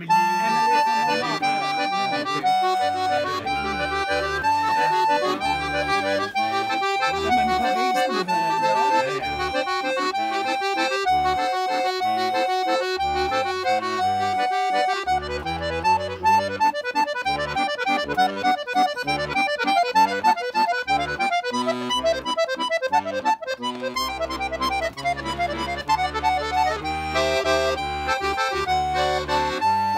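Chromatic button accordion played solo. It starts with a melody of long held notes over bass and chords, breaks about halfway into fast runs of notes, and settles back into held chords and melody notes for the last quarter.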